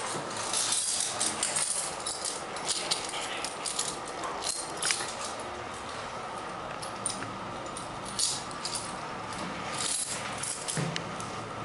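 Schindler hydraulic elevator cab rattling and clicking irregularly over a steady hum.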